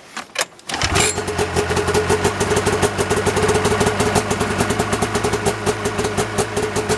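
Arctic Cat F7 700cc two-stroke twin snowmobile engine starting: a couple of short knocks, then it catches about a second in and runs at a steady, fast-pulsing idle.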